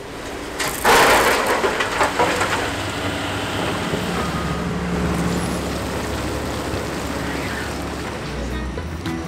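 Heavy earthmoving machinery running with a steady low diesel rumble, and a loud rush of soil and stones tipped out of an excavator bucket about a second in.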